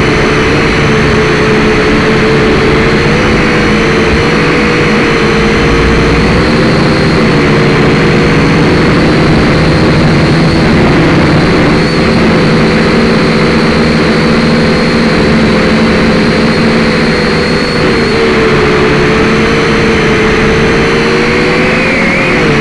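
Syma X5C quadcopter's four small brushed motors and propellers whining loudly, picked up right beside them by its onboard camera. The pitch wavers slightly as the throttle changes, with a brief dip in pitch and level about three-quarters of the way through.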